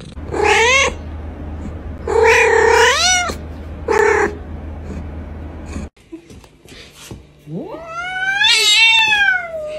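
Domestic cats meowing: three short meows in the first four seconds. Near the end comes one long yowl that rises, holds and falls over about two seconds: a cat's caterwaul as two cats square off to fight.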